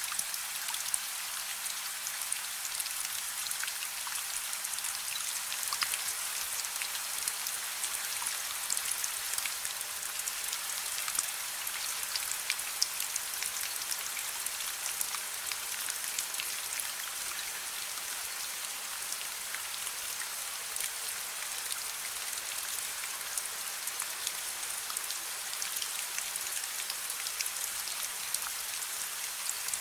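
Steady rain mixed with a crackling wood fire: an even hiss with many small, sharp ticks and pops scattered through it.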